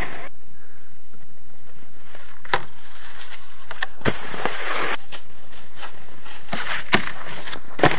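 Snowboards scraping over packed snow and sliding onto terrain-park boxes and rails. Several sharp clacks of a board hitting the box or rail come through, with a longer hissing scrape about four seconds in and another near the end.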